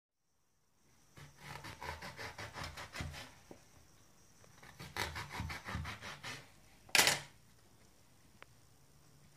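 Kitchen knife sawing back and forth through small aubergines over a metal tray, in two runs of quick rasping strokes. About seven seconds in there is one louder sharp clack, which fits the knife being laid down on the tray.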